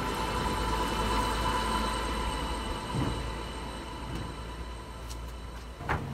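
Steady low background rumble with a faint hum, like a distant engine, slowly fading, and a single sharp knock near the end.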